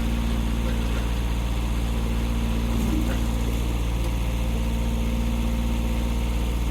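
Engine idling steadily with an even, low drone.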